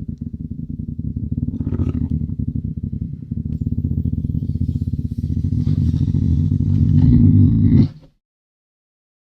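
A lynx making a low, rapidly pulsing rumble, growing louder toward the end, then cutting off suddenly about eight seconds in.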